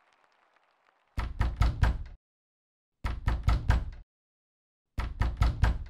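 Knocking: three rounds of four quick knocks, about two seconds apart.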